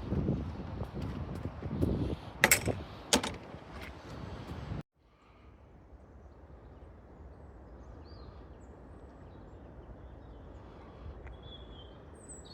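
Gusty rumble of wind on the microphone with a few sharp knocks, cut off abruptly after a few seconds. A faint outdoor hush follows, with a few short bird chirps near the end.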